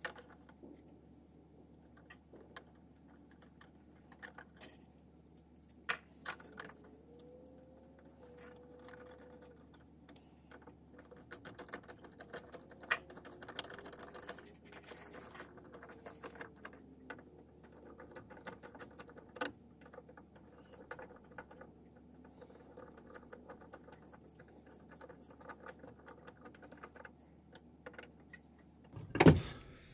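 Scattered small clicks, taps and rustles of hands handling an electrical box, its cover and Romex cable, with one much louder bump near the end.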